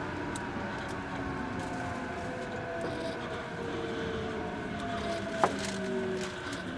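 Onboard running sound of an Eidan (Tokyo Metro) N05 series subway train slowing down: the traction motors' whine falls steadily in pitch over wheel and track rumble. A sharp click comes about five and a half seconds in.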